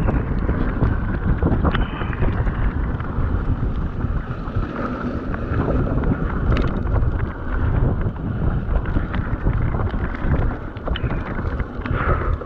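Mountain bike rolling fast down a wet gravel trail: heavy wind noise on the microphone over the rumble of tyres on loose stones, with frequent small clicks and rattles from grit and the bike.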